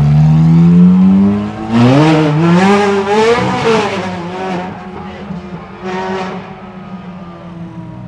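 Supercar engine accelerating hard, its pitch climbing. About two seconds in it drops sharply at a gear change and climbs again. After that the engine eases off and fades, with one brief rise near six seconds.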